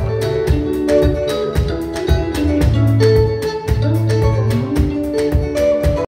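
A band playing rumba: a drum kit keeping a steady beat, with electric guitar and keyboard lines over a sustained bass line.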